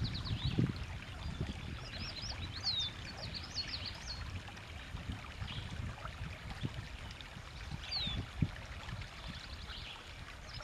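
River water trickling and lapping around a canoe, with a couple of soft low knocks. A songbird sings short phrases of quick, high, down-slurred notes several times through it.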